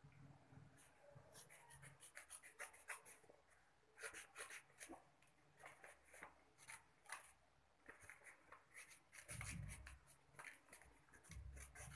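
Sheet of plain white paper being folded and handled, with faint scattered crisp rustles and crinkles and a soft low bump a little past nine seconds.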